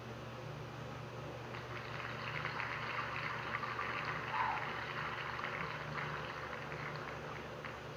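Recorded applause sound effect from a spinning-wheel name-picker website, a dense crackle of clapping that swells about a second and a half in and fades out near the end, over a steady low hum.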